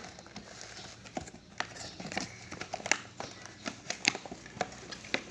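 Plastic toy blender set being unpacked and handled: irregular clicks and knocks of light plastic parts, with a little rustling.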